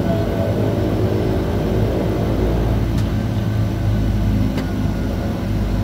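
Propeller aircraft engine running steadily while the plane taxis, heard from inside the cabin: a low, even drone with a hum underneath and a couple of faint ticks partway through.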